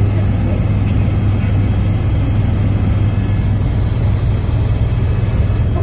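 Helicopter rotor and engine noise heard from inside the cabin in flight: a loud, steady drone with a strong low hum.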